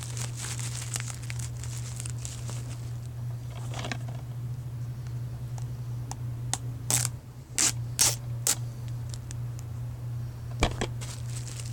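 Hands handling a plastic DVD case and its stickers: crinkling and scratching for the first few seconds, then a cluster of sharp plastic clicks a little past halfway and one more near the end, over a steady low hum.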